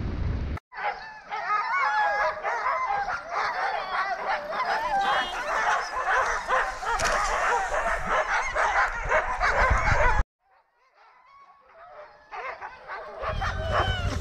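A chorus of many sled dogs barking and yipping at once, a dense overlapping din of high, excited calls, that cuts off abruptly about ten seconds in. Near the end, wind rumble on the microphone and more barking come back in as the team runs.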